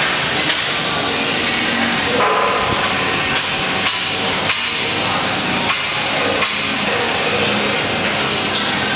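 Steady metal-fabrication shop din with sharp metal knocks and clanks at irregular intervals, about one a second.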